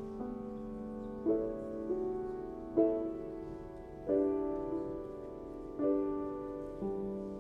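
Slow, gentle piano music: a note or chord is struck every one to one and a half seconds, and each rings and fades before the next.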